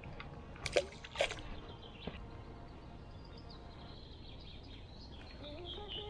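A released roach hits the water in two quick splashes about a second in, against a quiet outdoor background.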